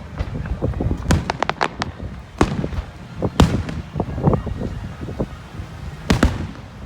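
Fireworks going off: a string of sharp bangs and crackling reports at irregular intervals, with a cluster of quick cracks about a second in and single loud bangs near the middle and near the end.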